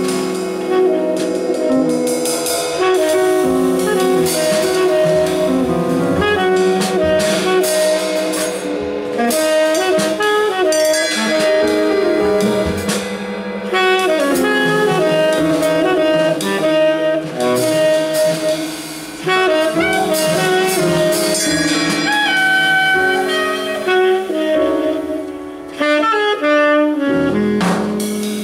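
Jazz quartet playing: a tenor saxophone leads with long held notes and quick runs over drum kit and cymbals, grand piano and Fender Rhodes electric piano.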